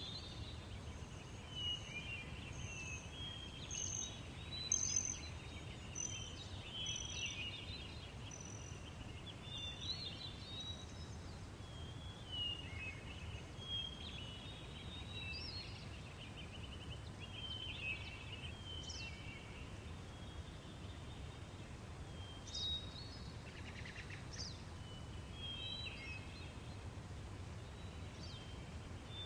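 Countryside daytime ambience: assorted birds chirping and trilling over a steady low rumble of breeze.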